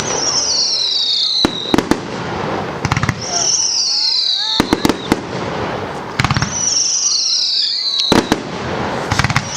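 Fireworks display: clusters of sharp bangs and crackles every second or two, with a high whistle that slides down in pitch for about a second, recurring roughly every three seconds.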